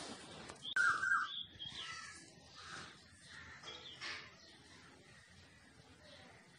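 Birds chirping in short calls, loudest about a second in and again near four seconds, with a few light clinks of small metal cookware near the start.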